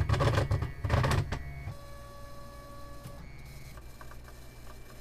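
Trinus 3D printer's stepper motors rattling and buzzing for about the first second and a half as the print head jerks, then a steady, quieter electrical whine that shifts pitch a little past halfway. These are weird noises the owner puts down to a power or misalignment fault he cannot pin down.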